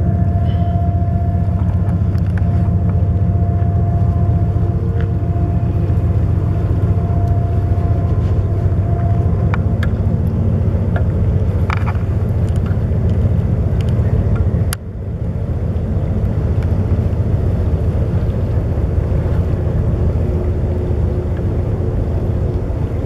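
CSX freight train rolling past: a steady low rumble of the cars running on the rails, with a faint steady whine in the first half. A sharp click about fifteen seconds in, after which the rumble briefly drops and recovers.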